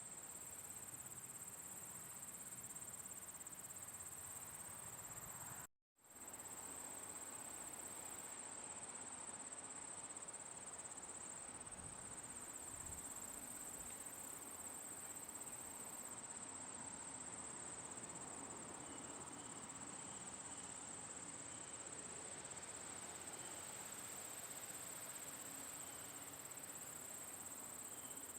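Crickets chirping in a steady, unbroken high trill over a faint outdoor hiss. The sound cuts out completely for a split second about six seconds in, then resumes.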